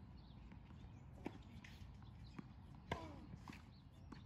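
Tennis balls struck by rackets and bouncing on a hard court during a rally: four sharp pops about a second apart, the loudest about three seconds in.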